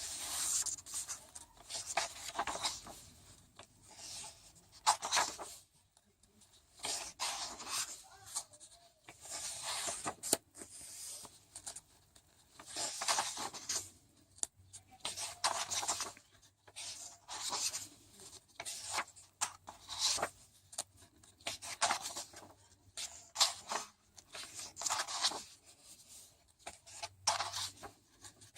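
Paper pages of a workbook being turned one after another, a short rustle every second or two with light taps in between.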